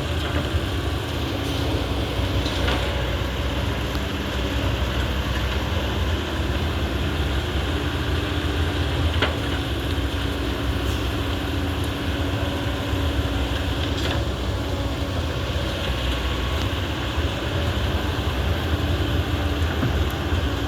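Hydraulic excavator's diesel engine running steadily while loading material, with a few sharp knocks.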